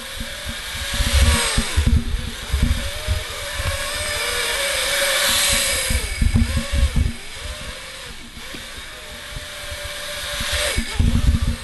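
Small X4 quadcopter drone flying, its electric motors and propellers making a whine that keeps rising and falling in pitch as the throttle changes. Irregular low rumbles of wind buffet the microphone throughout.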